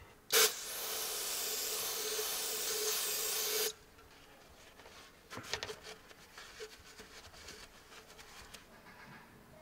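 A loud steady hiss starting about half a second in and cutting off abruptly some three seconds later, then a few light clicks and the soft rubbing of a rag wiping the oil filter mounting surface.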